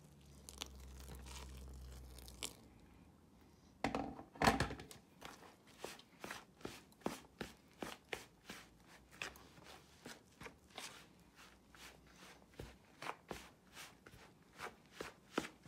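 Hand squeezing and rubbing crumbly corn-flour and wheat-flour dough against a plastic bowl: a run of short soft crunches, about two a second, with a couple of louder knocks about four seconds in.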